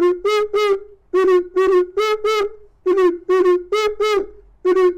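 A person imitating an animal call with the voice: short, high hooting calls repeated in even groups of four.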